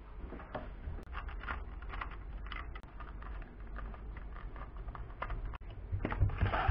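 Small precision screwdriver turning out the screw that holds a toy truck to its plastic packaging tray: a run of small, irregular clicks and ticks. Near the end comes a louder stretch of plastic and cardboard handling as the truck comes free of the tray.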